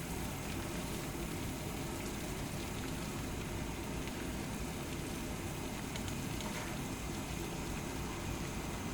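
Pot of water at a full boil, giving a steady bubbling hiss.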